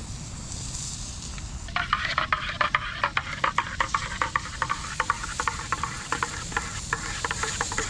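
A spoon stirring briskly in a cup of hot chocolate, rapid clinking and scraping strokes that start about two seconds in and keep going.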